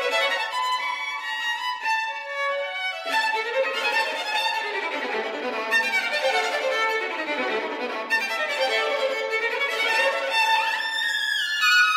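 Two violins playing a sonata together, several notes sounding at once and changing often, with a rising slide near the end.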